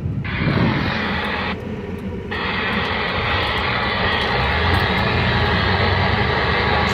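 Inside the cab of a 2002 Ford F-350's 7.3 L Powerstroke V8 turbodiesel pickup driving at about 40 mph: steady engine, road and driveline noise with a low drone. It carries the driveline shudder that the owner blames partly on a misaligned driveshaft, still there but less bad since the carrier bearing drop bracket went in.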